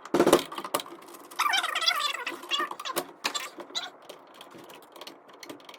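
Small metal clicks and scraping as a screw in an electrical breaker panel is spun out with the tip of a flathead screwdriver. A brief wavering, squeaky sound comes about one and a half seconds in.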